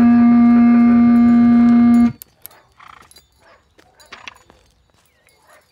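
Distorted electric guitar through a small amplifier, one held note ringing steadily, then cut off abruptly about two seconds in. After that come only faint scattered knocks and rustles.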